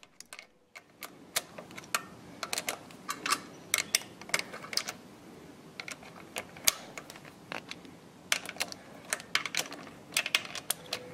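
Socket ratchet wrench clicking in short, irregular runs as the fuel pump's mounting nuts are tightened on an air-cooled diesel engine.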